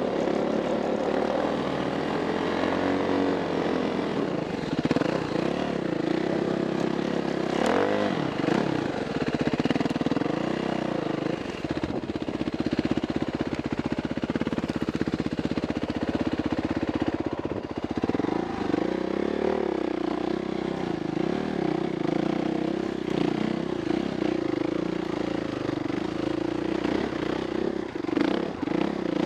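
Dirt bike engine running steadily at low revs, its note rising and falling several times as the throttle is opened and closed.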